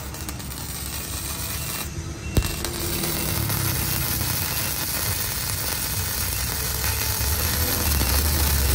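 Bossweld M100 gasless MIG welder laying a bead with flux-cored wire: the arc crackles and spatters. The arc breaks briefly about two seconds in, then strikes again with a sharp crack and carries on crackling.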